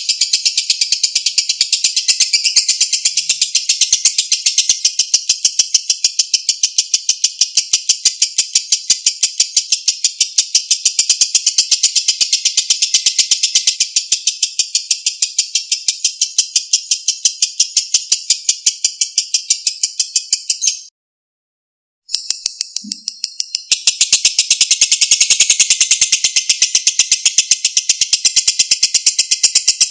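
Lovebird's long 'ngekek' trill, a rapid, high-pitched chattering run. It breaks off briefly about two-thirds of the way in, then starts again.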